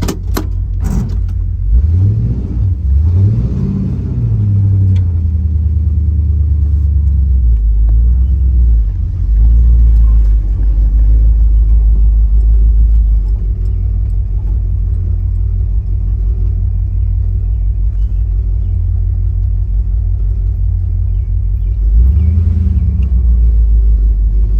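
Car engine running at low speed with a steady low rumble, its pitch rising and falling a few times a few seconds in and once more near the end as it is given throttle.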